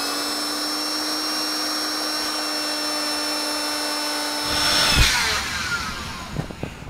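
Handheld electric air pump running steadily with a high whine, inflating a twin-size air mattress. Near the five-second mark it grows louder, there is a thump, and it switches off, its whine falling in pitch as the motor spins down.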